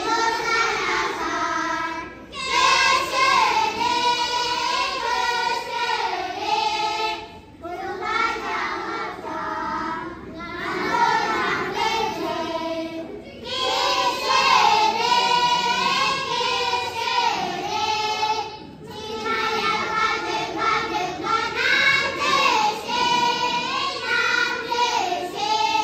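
A group of children singing together, in phrases of about five seconds with short breaths between them.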